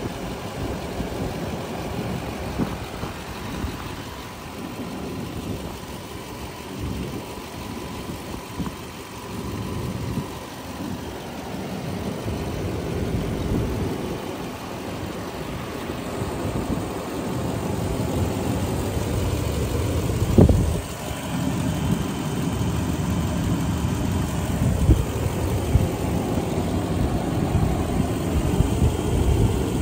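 Toyota 2UZ-FE 4.7-litre V8 idling, heard from the open engine bay, with wind gusting on the microphone. It grows louder in the second half, and a single thump comes about twenty seconds in.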